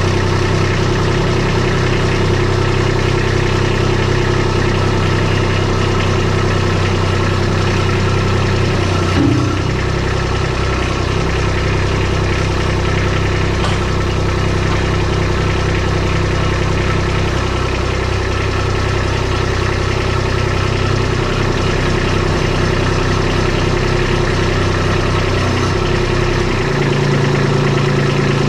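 Kubota compact tractor's diesel engine running steadily while the front loader is worked, its note changing about nine seconds in and again near the end.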